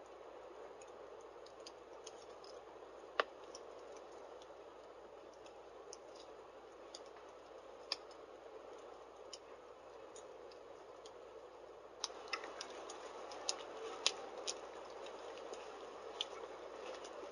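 Wood fire burning in a fireplace: a soft, steady hiss of flames with scattered crackles and pops from the burning logs, one sharp pop about three seconds in. From about twelve seconds the hiss grows a little louder and the crackling comes more often.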